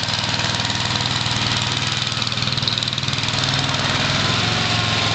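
Vintage Gravely walk-behind tractor with a rotary mower deck, its single-cylinder engine running steadily with an even pulse; the engine note shifts slightly about four seconds in.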